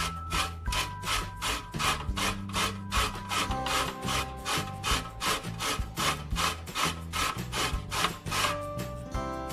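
Lemon peel rubbed up and down the metal teeth of a box grater, a rasping scrape repeated about three to four times a second as the lemon is zested.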